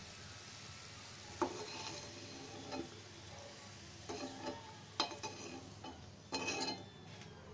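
A cooking utensil scraping and knocking against a pan as fried garlic cloves are lifted out of hot mustard oil, with a faint sizzle of the oil underneath. The knocks and scrapes start about a second and a half in and come in several short clusters.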